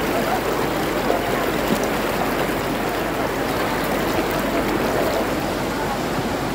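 Fast-flowing floodwater rushing across and over a road in a steady, continuous rush of water.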